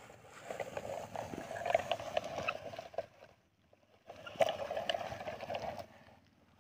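A plastic toy tractor pushed by hand over grass and dirt, its wheels rolling with a crackling, rustling sound, in two pushes with a pause between.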